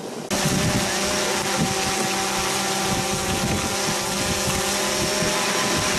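A motor running at a steady speed, cutting in sharply just after the start, with wind noise on the microphone.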